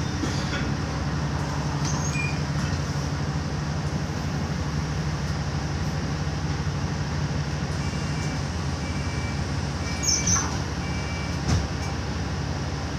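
Alexander Dennis Enviro400 double-decker bus's diesel engine running with a steady low drone, heard from inside the passenger cabin. A run of short high beeps comes in after about eight seconds, with a couple of brief knocks near the end.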